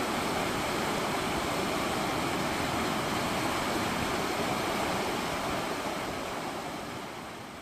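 Muddy rain floodwater rushing and churning down a concrete channel and over its walls, a steady rush of water that fades away near the end.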